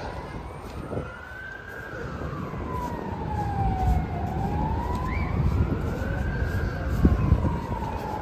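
Emergency vehicle siren in a slow wail, rising and falling twice. It sits over a low rumble that grows louder from about three seconds in, with a thump near seven seconds.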